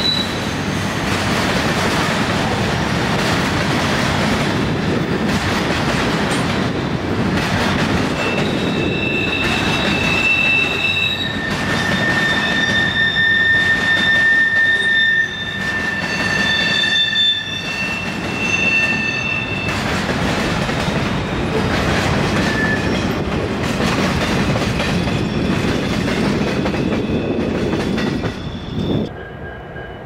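A freight train of flatcars loaded with long welded rail rolls past, its wheels running loudly on the rails. High-pitched wheel squeal sounds in several steady tones from about a quarter of the way in until about two-thirds through. The sound drops off abruptly near the end.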